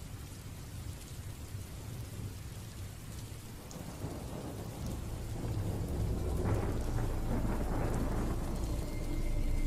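Steady rain with a rolling rumble of thunder that builds from about four seconds in, used as a dramatic background sound effect.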